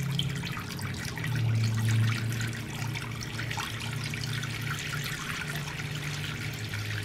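White vinegar poured in a steady stream from a plastic gallon jug into a plastic tub of flat steel parts, trickling and splashing on the metal.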